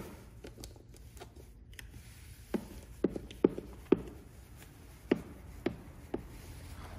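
Plastic PPF squeegee working wet protection film down onto a car's side mirror: irregular short clicks and scrapes, most of them in the second half.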